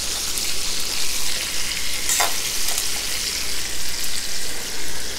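Chicken pieces sizzling in hot oil in a small skillet, a steady hiss, turned with metal tongs with a light knock about two seconds in.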